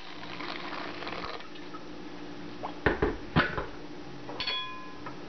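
Boiling water poured onto a metal jar lid in an enamel bowl, for about the first second and a half. Then two sharp knocks and, about four seconds in, a short metallic clink that rings.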